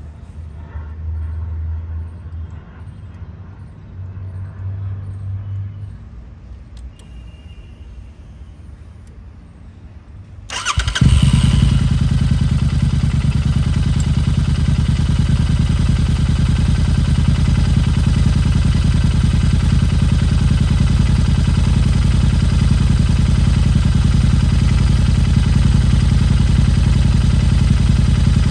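Royal Enfield Interceptor 650's parallel-twin engine starting about ten seconds in, then idling steadily and loudly through aftermarket Powerage exhaust pipes with the baffles removed.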